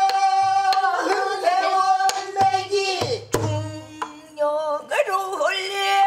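Pansori singing by a woman's voice in long, wavering, ornamented held notes, self-accompanied on a buk barrel drum. A few sharp stick strikes and low thumps on the drum come mostly between about two and three and a half seconds in.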